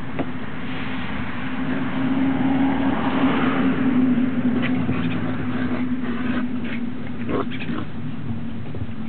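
A motor vehicle's steady engine hum that swells and fades around the middle, as of a car passing by. In the second half come a few short, high squeaks from the puppies.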